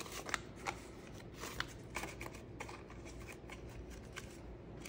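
Paper banknotes being handled and sorted by hand, rustling softly, then slid into a clear plastic pocket of a cash-envelope binder. There are a few sharper crackles in the first couple of seconds, then quieter rustling.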